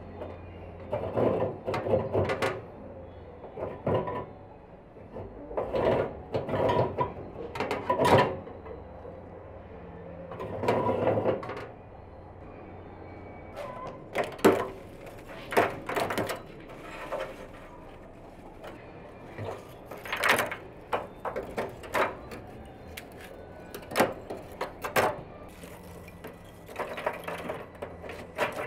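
Metal clanking and rattling as the parts of a steel-drum barbecue are handled and fitted together: the wire-mesh basket, the crank-turned spit rod and the barrel itself. Irregular knocks and scrapes, a few sharper strikes among them.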